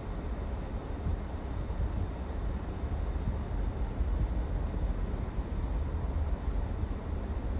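Steady low rumble of a moving vehicle's road and engine noise, even throughout with no distinct events.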